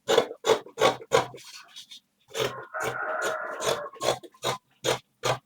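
Fabric shears snipping through cloth, cutting out a round pocket shape, in a quick regular run of about three snips a second. Near the middle the snips give way for a second or so to a denser rasping stretch.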